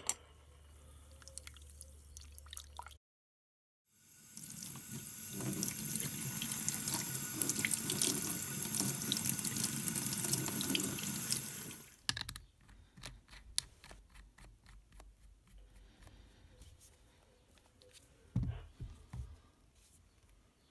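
Tap water running onto a rebuildable atomizer deck and into a stainless steel sink, rinsing the soap off the coil; the flow starts about four seconds in and stops about twelve seconds in. Light clicks and handling follow.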